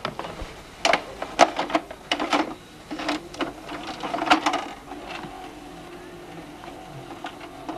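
Home VCR being worked by hand: a run of sharp clicks and clunks over the first few seconds, then a steady, quieter mechanical whirr.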